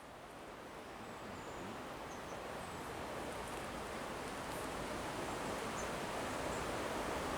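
Steady rushing outdoor noise that grows gradually louder throughout, with a few faint, short, high chirps.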